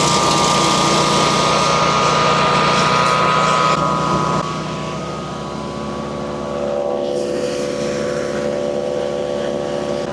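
Gas engine of a MechMaxx 8-inch wood chipper running steadily just after a cold start, on choke at low throttle. About four seconds in it gets a little quieter and its note shifts slightly.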